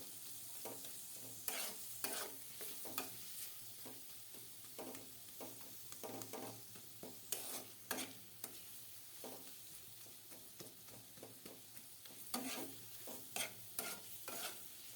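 Chopped onion with whole spices frying in oil in a karahi, a steady soft sizzle broken by irregular scrapes as it is stirred. The onions are being fried until they turn reddish-brown.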